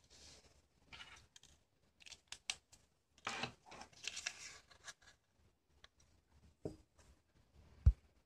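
Paper rustling and crinkling as a folded paper origami model is handled and pressed into shape, with a few light clicks. A short low thump near the end is the loudest sound.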